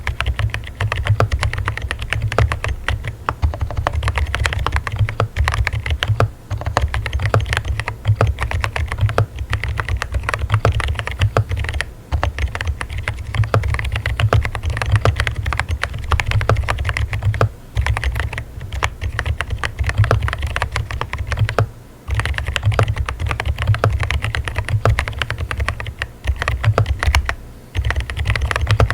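Fast typing on a mechanical keyboard fitted with Pink Salt silent tactile switches (37 gf). Keystrokes fall in rapid runs with a deep thump, with brief pauses every few seconds.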